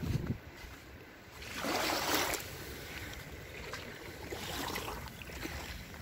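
Small waves lapping and washing onto a sandy shore, one wash swelling up about a second and a half in and a smaller one near the end, with wind rumbling on the microphone.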